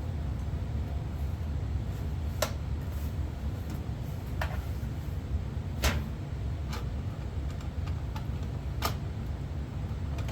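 About five separate sharp clicks and knocks of monitor stand parts being handled and fitted together, over a steady low hum.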